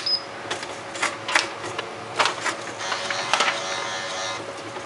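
Nakajima AE-710 electronic typewriter switched on: a click and a brief high beep, then a run of irregular clicks and knocks as the mechanism resets, with a whir from the carriage motor about three seconds in.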